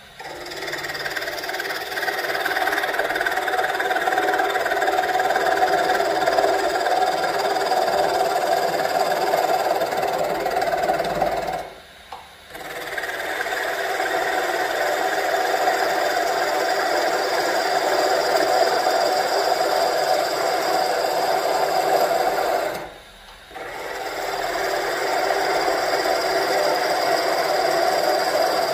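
Lathe turning tool cutting the spinning Nargusta wood handle: a steady cutting noise that stops briefly twice when the tool comes off the wood, leaving only the quieter running of the lathe.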